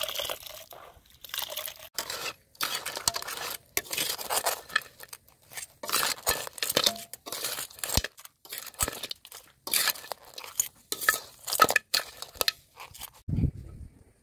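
A string of short kitchen handling noises, each cut off abruptly: grated coconut squished and squeezed by hand in water, and raw blue crabs clattering on a metal wok.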